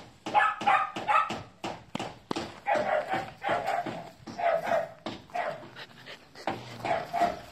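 Dogs barking and yipping in short, high-pitched barks, repeated many times, with a quick patter of short clicks beneath.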